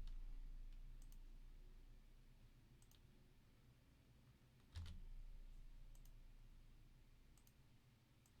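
Faint mouse clicks, about half a dozen single clicks spaced a second or two apart in near silence, one a little louder with a dull thud about halfway through.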